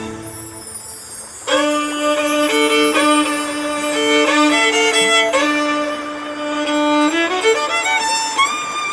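Background music: a slow melody played over a long held low note, with a slide up in pitch about seven seconds in and a wavering held note near the end.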